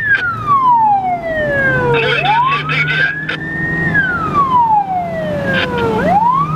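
Police car siren on a slow wail, gliding up and down about every four seconds, heard from inside the pursuing car over the steady hum of its engine.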